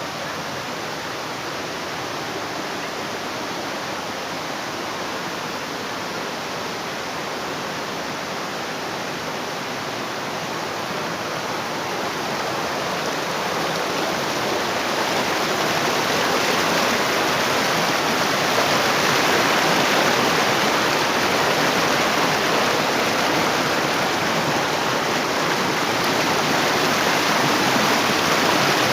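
Waterfall water rushing and splashing: a steady, even noise that grows louder about halfway through and then holds.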